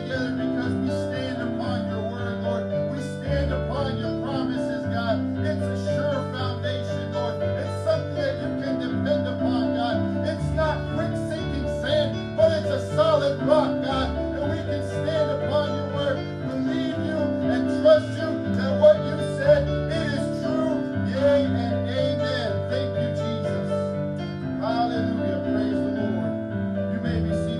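Church worship music: guitar and held chords that change every few seconds, with a man's voice singing over them.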